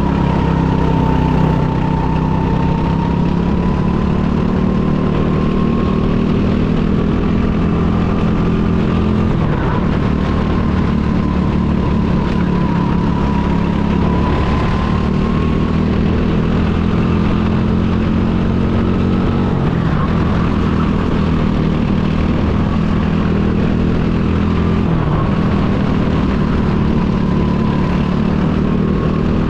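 Go-kart engine noise running loud and steady, with a few brief dips in pitch.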